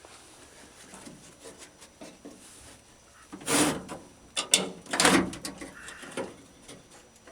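Metal parts scraping and sliding inside a truck door, twice, with sharp clicks in between, as the window track guide rail is worked loose.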